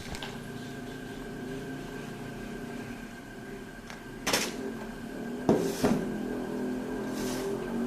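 A steady mechanical hum with a constant tone, broken by a short rustle about four seconds in and two sharp knocks about half a second apart near six seconds.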